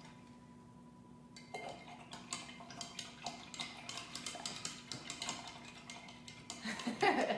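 Paintbrush being rinsed in a water cup, its handle tapping and clinking quickly and repeatedly against the container, starting about a second and a half in. There is a louder clatter near the end.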